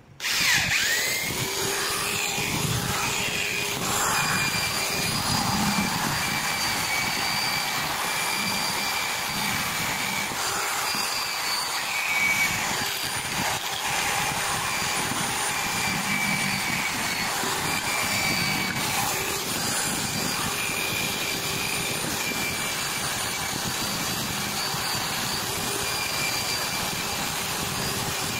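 Electric drill spinning a small wire wheel brush against rusty steel to strip the rust: a steady high motor whine over the scratchy noise of the wire bristles on the metal, louder and rougher where the wheel bites around 4 and 12 seconds in.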